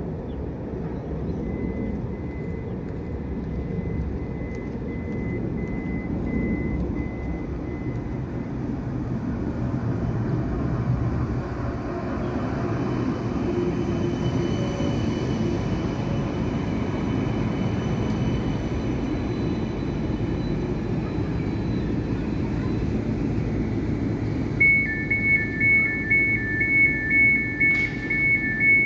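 Light rail tram, a CAF Urbos, running in along the track to the stop: a steady rumble of wheels and running gear with a faint electric whine, swelling as it passes close. Near the end a fast two-tone beeping starts, the tram's door warning signal at the stop.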